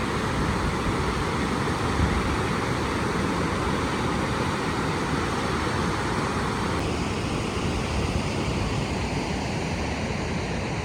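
Steady rushing noise of water pouring through a river spillway, mixed with wind on the microphone; the sound changes slightly about seven seconds in.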